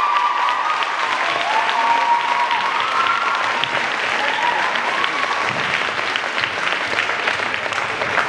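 Audience applauding after a gymnastics routine, with a few high voices cheering in the first few seconds.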